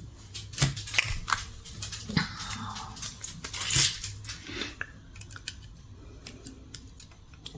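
Costume jewelry being handled: a necklace chain and earrings give a scatter of small metallic clicks and clinks, with a brief rustle about halfway through.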